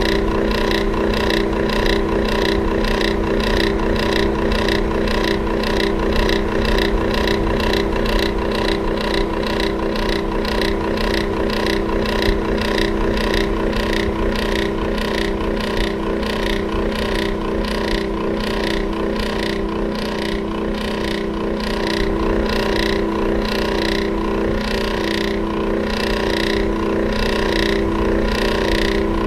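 Electric fan running steadily: a motor hum with a regular pulsing beat, about two to three a second, over the whir of the blades.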